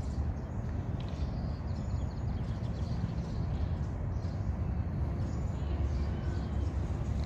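Outdoor background noise: a steady low rumble, with faint, brief high chirps now and then.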